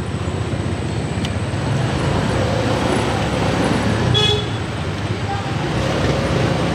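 Motorcycle riding slowly through street traffic, with steady engine and road noise and a short vehicle horn toot about four seconds in.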